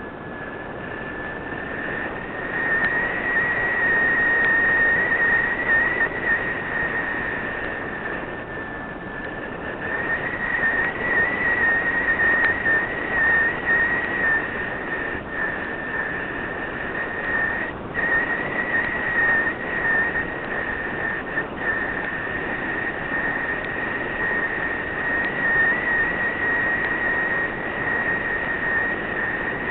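Steady high-pitched whine of a small aircraft's motor and propeller, picked up by a camera on board, over a rushing noise. The pitch wavers slightly and the rush swells and dips.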